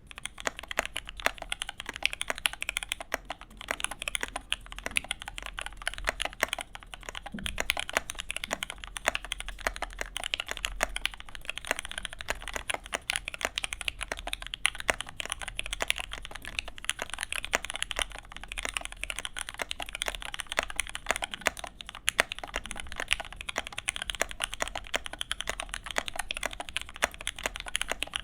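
Custom OTD 'The Cheat' mechanical keyboard with vintage Cherry MX Black linear switches and CRP keycaps being typed on continuously: a fast, steady clatter of keystrokes.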